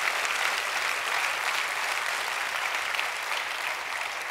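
Audience applauding steadily, the clapping easing off slightly near the end.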